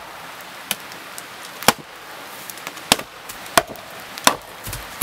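An axe chopping firewood: about six sharp strikes, roughly one a second.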